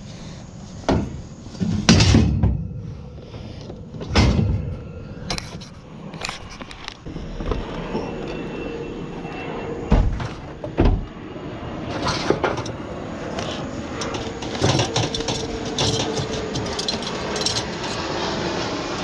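Heavy scrap metal banging and clanking: a string of loud sharp knocks, followed by steadier rattling and rumbling.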